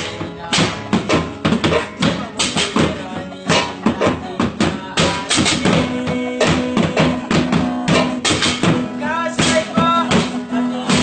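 Improvised band playing: acoustic guitar and a Casio electronic keyboard over homemade drums beaten on a plastic paint bucket, a metal basin and a metal plate on a stand. A steady beat of strikes runs throughout, and a low keyboard note is held through the second half.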